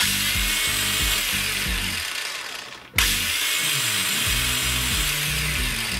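DEKO DKAG20-125 cordless 125 mm angle grinder, rated 8500 rpm, running unloaded with no disc fitted. It is switched on twice, and each time the motor jumps straight to full speed with no soft start. The first run winds down after about two seconds, and the second start comes about three seconds in.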